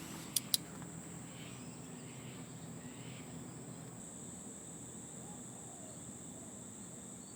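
Crickets chirping in a steady high-pitched drone over a low hiss of flowing water. About half a second in come two sharp clicks in quick succession.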